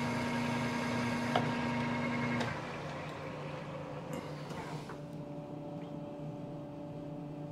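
Manual metal lathe running with its spindle and chuck turning steadily. About two and a half seconds in the power is cut and the spindle coasts down over the next couple of seconds, leaving a lower steady hum.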